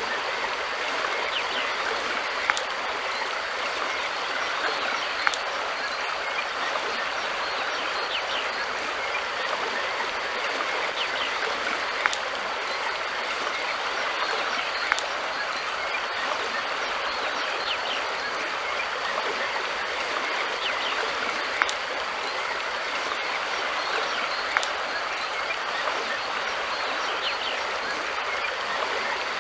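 River water flowing in a steady, unbroken rush, with a sharp small tick every few seconds.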